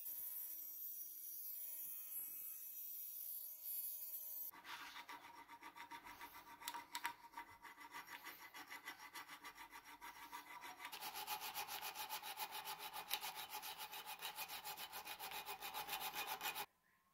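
Dremel rotary tool with a cutoff disc whining steadily as it cuts a metal key blank held in a vise. About four and a half seconds in this gives way to a hand file rasping back and forth over the key blank in quick, even strokes, which stop abruptly near the end.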